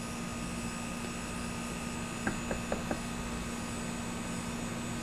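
Steady background rumble and hum, with four faint short chirps a little over two seconds in.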